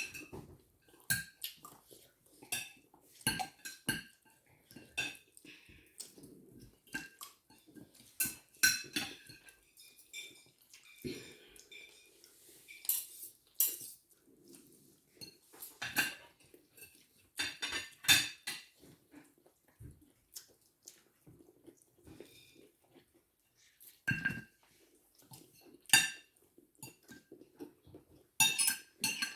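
Cutlery clinking and scraping against plates during a meal: irregular sharp clinks with a short metallic ring, sometimes several in quick succession.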